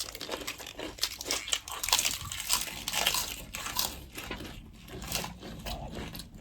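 Close-miked eating sounds: someone chewing food, with many irregular small clicks and crunches from the mouth.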